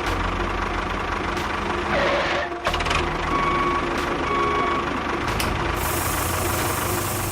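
Small electric motor of a miniature model construction vehicle running with a steady hum. A loud rushing noise comes about two seconds in, and two short beeps follow.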